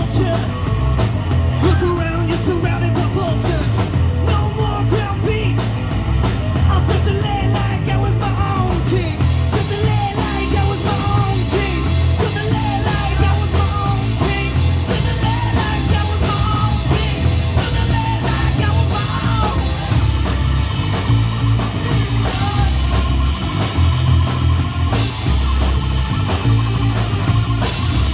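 Live rock band playing through a PA: electric bass guitar, electric guitar and a drum kit, with the cymbals thicker in the last third.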